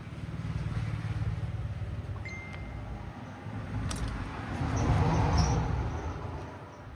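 Low engine rumble of a passing motor vehicle, swelling twice and loudest about five seconds in before fading away.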